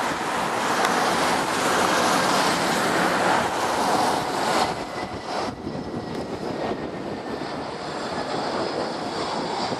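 Airbus A320 jet airliner on short final to land, its engine noise mixed with gusty wind buffeting the microphone. The noise is loudest in the first half, drops suddenly about halfway through, and then carries on quieter with a faint steady engine whine.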